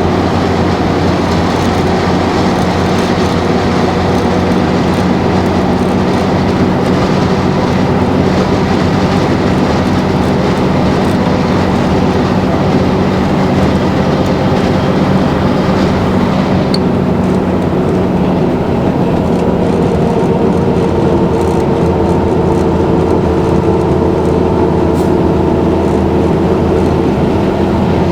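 Mercedes-Benz O-400 bus's OM 447 LA turbocharged inline-six diesel running under way, a steady drone of engine tones over rolling noise. About 17 seconds in the engine note shifts, the low tone giving way to higher ones.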